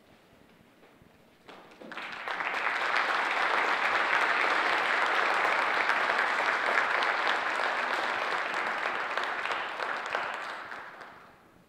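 Audience applause in an auditorium, starting about two seconds in, rising quickly to a steady level and fading out near the end.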